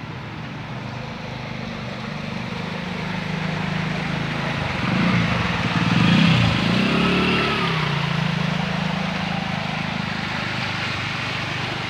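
Motorcycle engine drawing near, passing close about five to seven seconds in, its pitch sliding down as it goes by, then riding away through floodwater with a hiss of water off its wheels.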